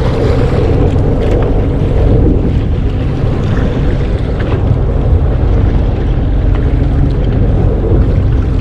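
Steady wind and sea noise on a small fishing boat at sea: wind rushing over the microphone and water moving against the hull, over a constant low rumble.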